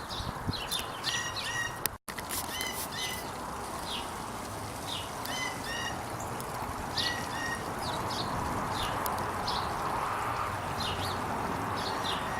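Small birds chirping: short, high chirps repeated throughout, over a steady rushing background noise.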